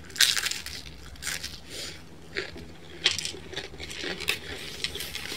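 Crisp crunching of thin-crust pizza being bitten and chewed, in short crackly bursts about once a second, the loudest right at the start.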